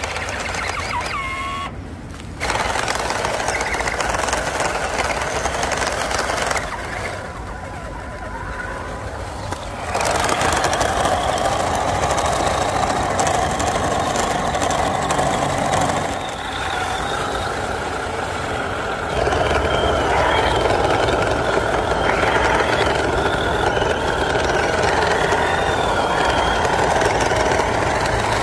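Electric motor and gearbox of an MN128 RC crawler whining steadily as it drives through mud and water, its rear wheels not turning because the rear differential is broken. The level changes several times.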